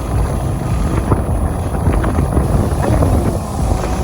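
Wind rushing and buffeting over the microphone of a moving motorcycle, with the bike's engine running underneath as a steady rumble.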